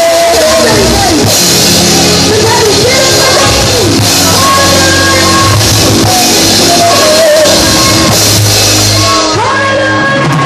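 Live band playing loudly: a drum kit with a constant wash of cymbals and a steady bass line underneath, with a melody bending up and down in pitch above.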